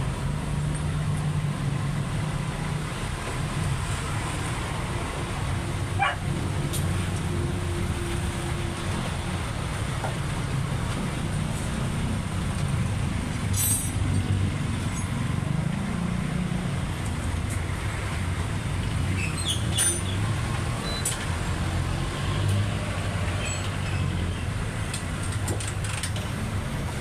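Motor vehicle engine running with a steady low rumble, with a few short sharp clicks and ticks.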